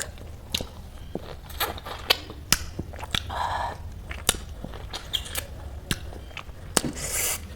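Close-miked eating sounds: scattered mouth clicks and smacks while the last mouthful is chewed, with a brief rustle a little after three seconds and another near the end.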